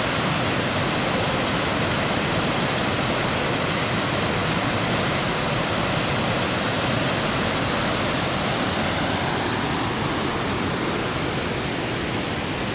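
Rushing water of a river swollen by typhoon rain, a steady loud roar that eases slightly near the end.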